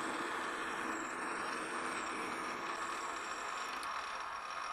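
Metal lathe running steadily with an even mechanical hum.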